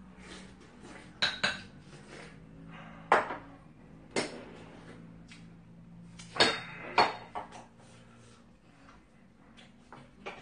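Metal spoon and ceramic bowls clinking on a table: several sharp, briefly ringing clinks, the loudest about three seconds in and a pair at about six and a half and seven seconds.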